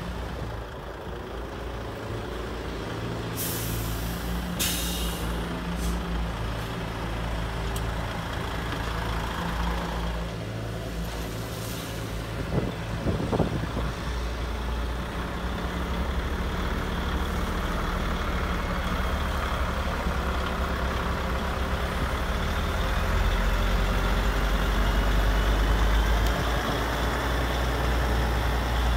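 Radio-controlled model excavator and trucks running with a steady mechanical hum, with two short hisses about four seconds in and the hum growing louder near the end.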